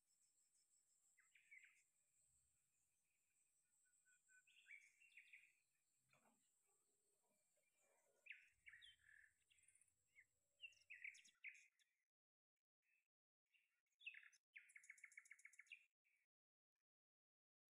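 Faint birdsong: small birds giving short chirps and whistles, with a fast trill of evenly repeated notes near the end.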